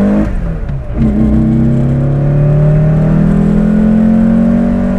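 Car engine accelerating hard: a gear change about a quarter second in, then the revs climb steadily through the next gear.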